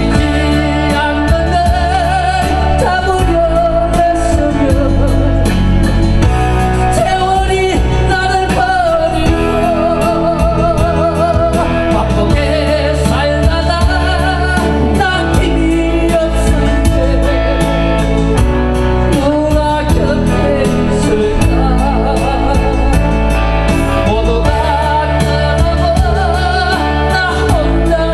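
A solo singer holding a melody with vibrato over backing music with a steady beat.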